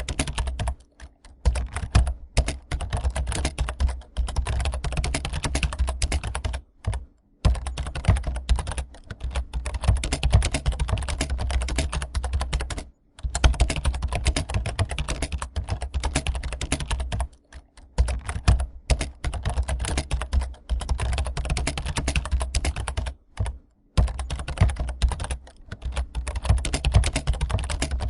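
Rapid, continuous clatter of computer keyboard typing, many keystrokes a second with brief pauses now and then, like candidates typing in an exam hall.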